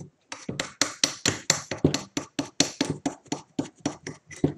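Rapid, fairly even clicking, about four to five clicks a second, as a long threaded knob screw is wound out by hand from a Celestron CG-4 equatorial mount's metal housing.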